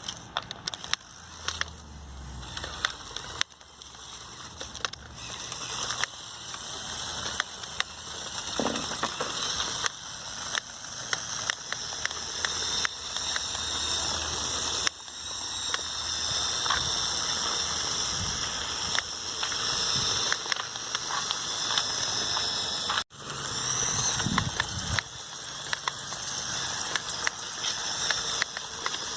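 LEGO Technic RC truck driving on its hobby-type motor through planetary gearing: a high motor and gear whine that rises and falls with speed, over scattered clicks and crackle from the drivetrain and the ground.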